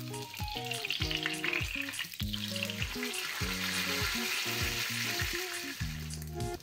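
Hot oil sizzling around a large flat disc of kubba Mosul (bulgur-shelled kibbeh) shallow-frying in a pan. The sizzling grows louder from about two seconds in as a slotted spoon works under the disc and turns it over.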